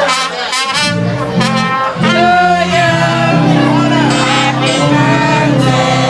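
Live band music with a voice singing over steady held low notes.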